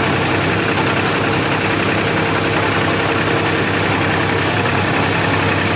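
Tractor engine running steadily while it drives a potato harvester.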